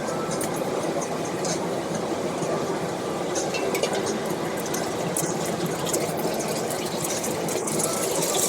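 Food frying in hot oil on a street stall's stove: a steady sizzling hiss with many small crackles.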